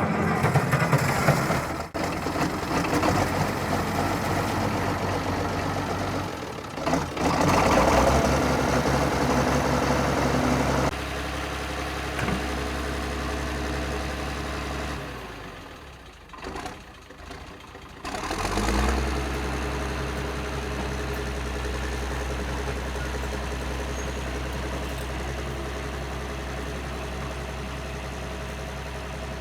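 1979 International TD9 dozer's turbocharged diesel engine starting and running, with a rise in revs about seven seconds in. It drops away and wavers about fifteen seconds in, then picks back up about eighteen seconds in and settles into a steady idle.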